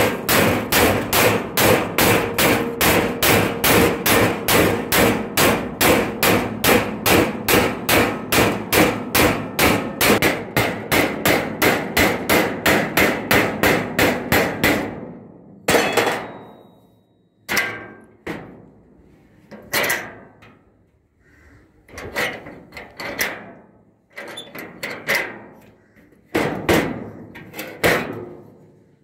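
Hammer driving a chisel through a 1.5 mm zinc-coated steel sheet to cut out a marked circle: quick, even blows about three a second. The blows stop about fifteen seconds in and give way to scattered single knocks with pauses between them.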